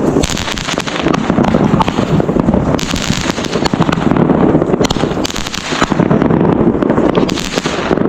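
Consumer fireworks going off: dense, rapid crackling and popping throughout, with louder hissing spells about three, five and a half, and seven and a half seconds in.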